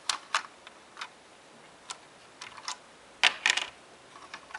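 Sharp plastic clicks and taps of LEGO pieces being handled, scattered irregularly, with a louder cluster a little past three seconds in.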